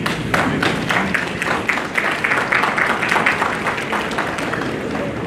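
Audience applause in a hall, dense at first and thinning out about four seconds in.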